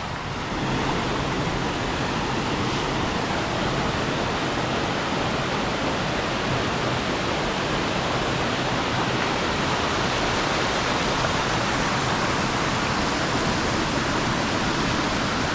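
Rushing water of a stream: a steady, even rush of running water that swells slightly about a second in.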